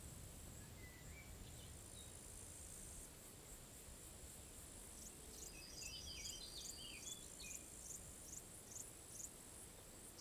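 Faint outdoor evening ambience: crickets or similar insects keeping up a steady high-pitched trill, over a low rumble. About halfway through, a run of short high chirps comes in, roughly two a second, for several seconds.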